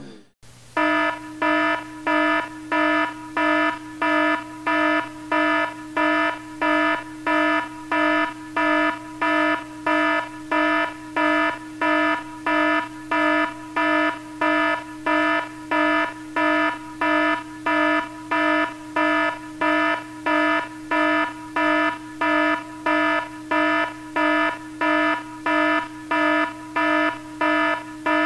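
Electronic timer alarm: a buzzy beep repeating about twice a second at a steady pace, sounding as the countdown ends.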